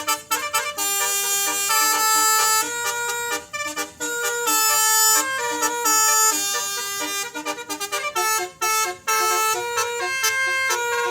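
Basuri telolet multi-tone horn playing a tune: a string of held notes stepping up and down in pitch, with quick short toots near the start and again about three-quarters of the way through.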